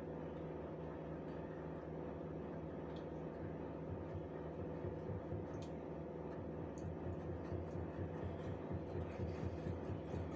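Wire whisk beating a thin oil-and-honey marinade in a ceramic bowl: faint swishing with light clinks of the wires against the bowl, over a steady low hum.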